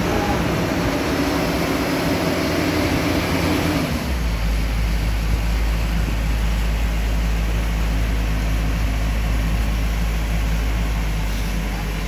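Bimo 102 combine harvester's engine running steadily. About four seconds in its note changes and a strong, steady low drone takes over.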